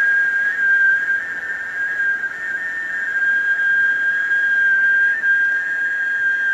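A long whistled tone held steadily at one high pitch, with a fainter second tone sounding just above it. It is the healer's sound-healing tone, in which he tells the listener to notice two sounds overlapping in one place.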